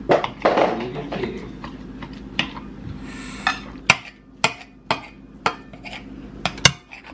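Kitchen knife chopping on a cutting board: about eight sharp, irregularly spaced knocks, over a faint steady hum.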